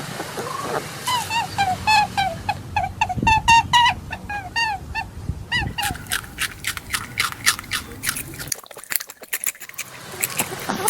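A run of short, high chirping calls, about four or five a second, for the first half. Then rapid, crisp crunching clicks at about five a second: a rabbit chewing its food.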